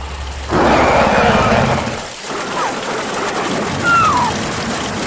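Horror sound effects: a loud, rough roar starts about half a second in and breaks off after about a second and a half. A noisy backdrop follows, with two short falling whistle-like cries.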